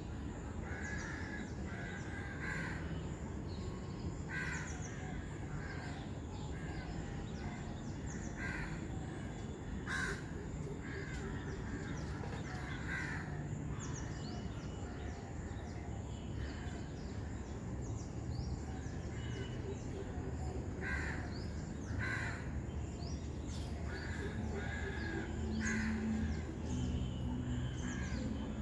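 Birds giving short, harsh calls, one every second or two, over a steady low background rumble.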